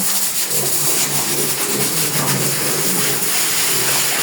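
Water spraying from a hose as pigs are washed, a steady loud hiss, with a low broken hum underneath.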